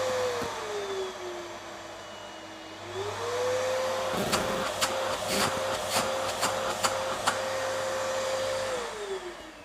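Vacuum cleaner running on a newly fitted, larger replacement motor, with a steady motor whine and rush of air; the speaker calls its suction strong. The whine dips in pitch about a second in, climbs back at about three seconds, and a run of sharp ticks and rattles comes in the middle. Near the end the motor winds down.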